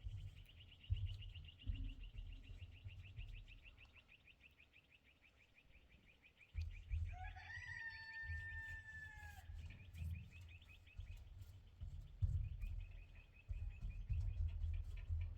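Outdoor animal sounds: a steady, fast-pulsing high chirring, with one drawn-out call about seven seconds in. Low rumbles and thumps come and go underneath.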